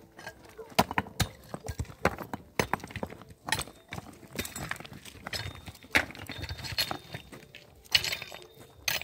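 Irregular sharp knocks and clinks of hard objects striking, one to three a second and uneven in strength.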